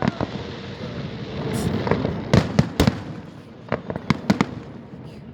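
Fireworks display bursting: a string of sharp bangs, some in quick clusters of two or three, with a continuous crackling rumble between them.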